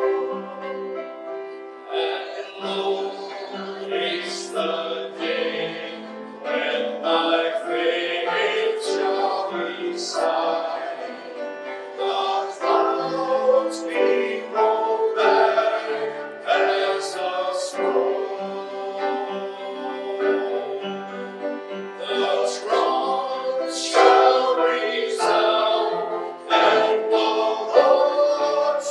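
Music with singing voices over instrumental accompaniment, a sung hymn or worship song.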